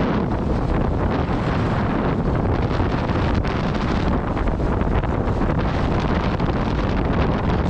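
Steady wind noise buffeting the microphone, with water rushing past the hulls of a Tornado catamaran sailing fast on a reach.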